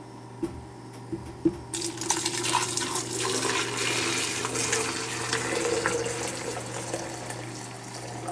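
A few light clinks, then from about two seconds in water pouring steadily into a thermal coffee carafe, filling it with a Cascade detergent solution to soak clean.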